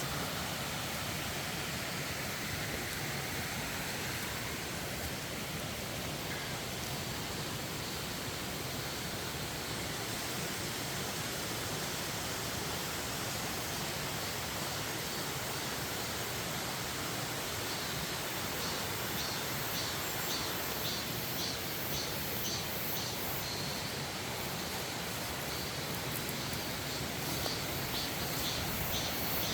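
Steady rushing of a mountain stream. About two-thirds of the way in, a high chirping joins in, pulsing about twice a second.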